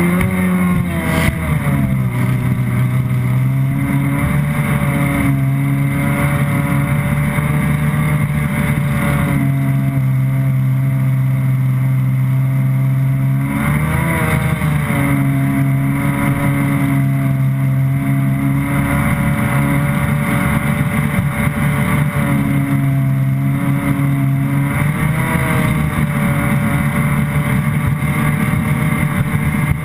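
Stand-up jet ski's engine running at speed, its pitch dropping and rising again a few times with throttle changes, over the rush of water spray.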